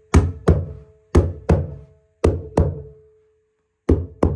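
Mallet striking a stair bolster to tap a carpet runner into the gripper at the back of a stair tread. There are eight sharp knocks in four quick pairs, with a short pause before the last pair. Each knock is followed by a brief ringing tone.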